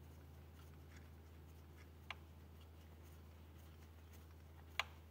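Near silence over a low steady hum, broken by two small sharp clicks of parts being handled at the engine's injectors: a faint one about two seconds in and a louder one near the end.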